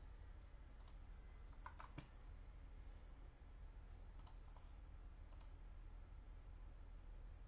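Faint computer mouse clicks: one about a second in, a quick group of three near two seconds, then single clicks at about four and five seconds, over a low steady hum.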